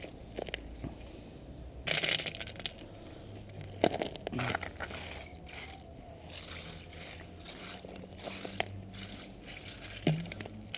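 Gravel being scooped off the ground and dropped into a plastic coolant expansion tank, crunching and rattling in several short spells, as the tank is loaded with stones to scour out coolant sludge.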